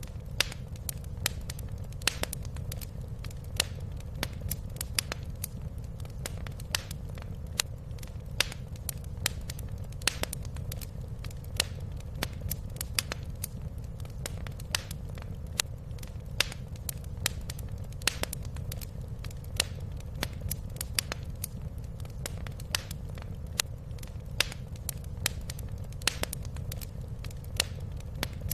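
Fire crackling in a fireplace: irregular sharp pops and snaps, a few each second, over a steady low rumble.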